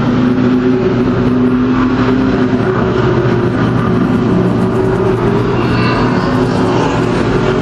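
Several racing cars' engines running together, a steady loud drone of overlapping engine notes.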